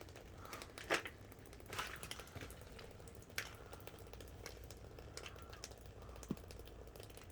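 Footsteps on fire debris: a few scattered crunches and clicks over a low steady rumble.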